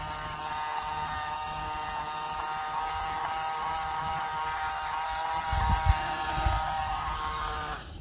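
Battery-powered toy iron's small motor buzzing steadily as it runs, then cutting off abruptly near the end. A few low bumps from handling come shortly before it stops.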